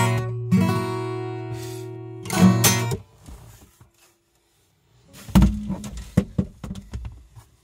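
Acoustic guitar ending a song: a strummed chord left ringing, another strum, then a last chord damped short about three seconds in. After a short pause, a heavy thump and a run of knocks and clatter as the guitar is handled and set aside.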